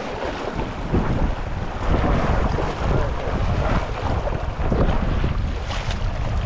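Wind buffeting the microphone over the rush of river water.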